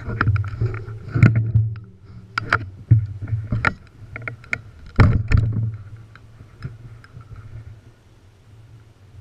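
YT Industries enduro mountain bike rattling and knocking as it rolls down a rocky trail: chain slap and frame clatter over a steady tyre rumble. The biggest knock comes about five seconds in, and it all gets quieter after about six seconds.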